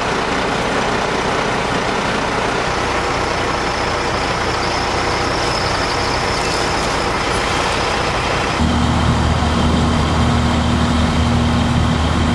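Diesel engines of fire apparatus running steadily, a continuous engine drone. About two-thirds of the way through it changes to a stronger, steady low idling hum.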